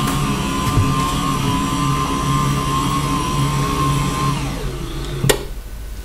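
MAIDeSITe dual-motor electric standing desk frame running its leg motors, a steady motor hum and whine, just a little louder than footsteps. About four and a half seconds in the whine falls in pitch and fades as the desk slows to a stop, followed by a sharp click.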